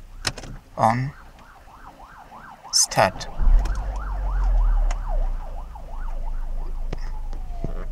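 Renault Clio petrol engine cranking and catching just after three seconds in, running loudly for a couple of seconds and then settling into a steady idle. An emergency-vehicle siren sounds throughout, sweeping quickly up and down, then slowing to a long wail near the end.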